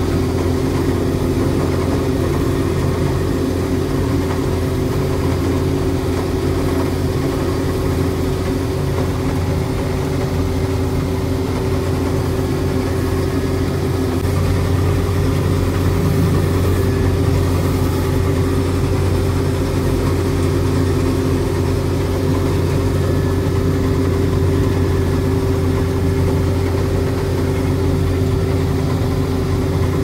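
Combine harvester running steadily while cutting wheat, heard from inside the cab: a constant engine and machinery drone with a low hum.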